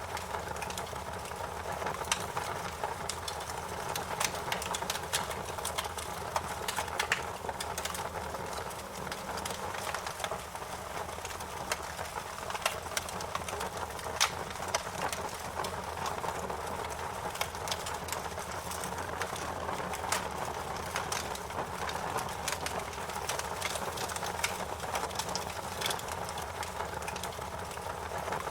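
Wood fire burning with a steady hiss and many irregular sharp crackles and pops.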